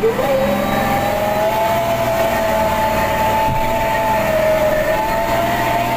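Heavy truck's diesel engine running hard under load while towing a tanker truck out of a ditch, a steady whine over the engine rumble. A short knock about three and a half seconds in.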